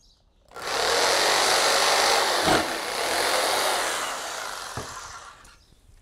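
Electric saber saw (jigsaw) starting up and cutting off a small wooden twig peg, with one short knock near the middle. It starts about half a second in, runs steadily, then slowly winds down to a stop.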